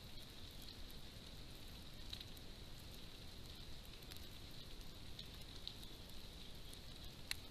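Faint steady outdoor ambience: a thin, high hiss-like drone with a few soft clicks scattered through, and one sharper click near the end.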